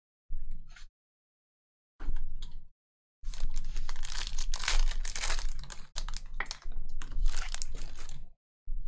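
Foil wrapper of a 2020 Panini Prizm football hobby pack being torn open and crinkled: a few short rustles, then about five seconds of continuous crackling from about three seconds in.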